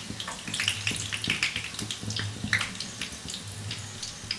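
Battered chicken pieces frying in hot oil, crackling and spitting in irregular pops, with a low hum underneath.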